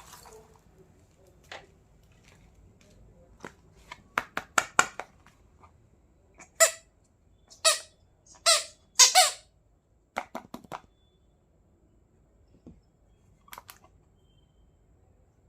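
Small plastic toy pieces being handled: a quick run of light clicks, then four loud squeaks of plastic rubbing on plastic, followed by a few more soft clicks.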